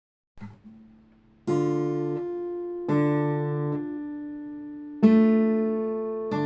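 Acoustic guitar strumming an intro: a few soft plucked notes, then four strummed chords, each left to ring and fade before the next.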